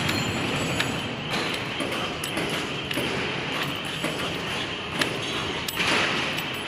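JAC CBD20-SM electric pallet truck driving slowly with a loaded steel crate on its forks: a steady running and rolling noise with scattered clicks and knocks.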